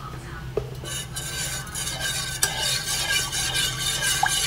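Metal spoon stirring a liquid mixture in a stainless steel saucepan, scraping round the pan's sides and bottom, starting about a second in. A steady low hum runs underneath.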